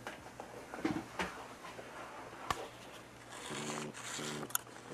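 Clicks and knocks of computer parts being handled, with one sharp click about two and a half seconds in. Near the end a short low buzz sounds twice.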